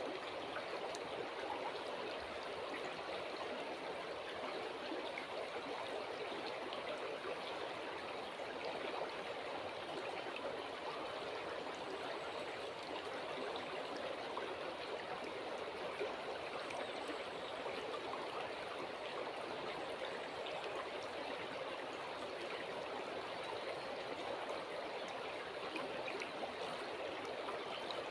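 River water flowing steadily over stones, a constant, even babble with no change in strength.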